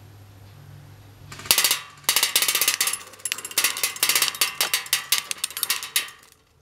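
Cyma CM032 M14 EBR airsoft electric rifle fired on full auto in long bursts, its BBs clattering rapidly against metal plate targets and knocking the plates down. The fire starts about a second and a half in, breaks briefly near two seconds, and stops shortly before the end.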